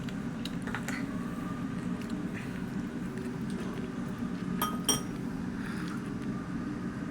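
Tableware clinking during a meal: soft taps of utensils on dishes and one sharp, ringing clink a little past the middle, over a steady low room hum.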